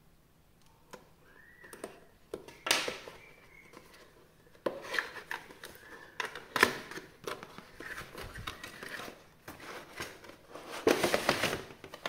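Packaging being handled and opened by hand: irregular rustles and scattered sharp clicks, with the loudest stretch of rustling near the end.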